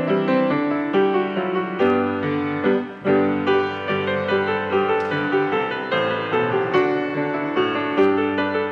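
Grand piano playing a slow piece as the postlude at the end of a church service, with notes and chords struck roughly once a second.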